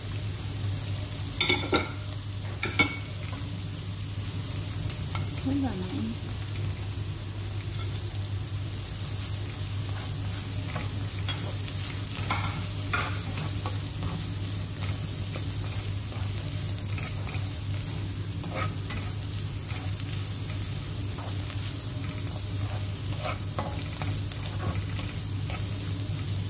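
Diced ham and mixed vegetables frying in butter in a nonstick pan, with a steady sizzle while a plastic slotted spatula stirs and scrapes them, tapping the pan now and then. Two louder knocks come about one and a half and three seconds in, over a steady low hum.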